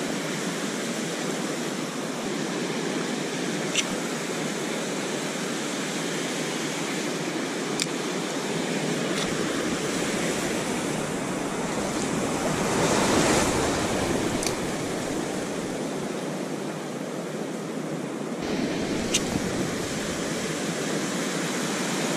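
Ocean surf breaking and washing up a sandy beach, a steady rush that swells with a bigger wave about 13 seconds in.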